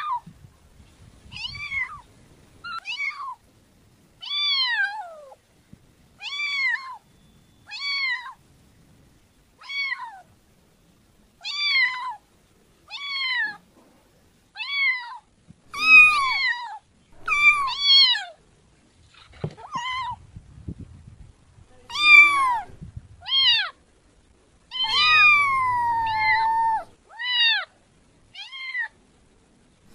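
Kitten meowing over and over, short high mews that rise and fall, about one a second. One longer drawn-out meow comes near the end.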